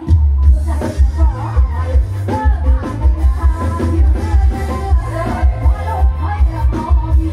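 Loud Thai dance music from a rot hae mobile stage truck's sound system, with a heavy, regular bass beat and singing over it. It comes in loud right at the start after a brief lull.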